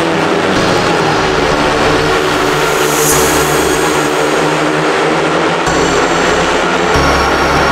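Speedway bikes racing, their 500cc single-cylinder methanol engines loud and continuous.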